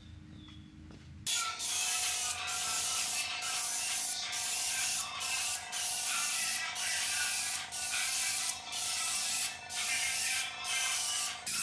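Pressurised spray tool hissing as it blasts a fine mist onto a truck wheel, with a steady whine under it. It starts about a second in and breaks off briefly roughly once a second.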